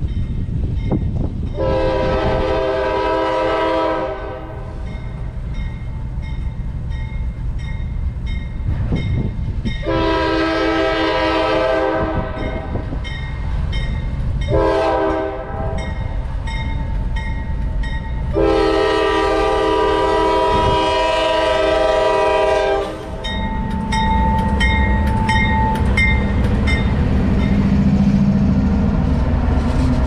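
CSX diesel locomotive's air horn, several tones sounding together, blowing the grade-crossing signal: long, long, short, long, the last blast held about four seconds. A crossing bell rings steadily between the blasts, and in the last third the locomotive passes close with a low diesel drone and the clicking of wheels on rail.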